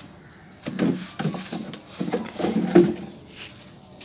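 Hands crushing dried, crunchy sand-and-cement clumps, giving several bursts of crackly crunching as the lumps break and the crumbs patter down. The loudest crunch comes a little before three seconds in.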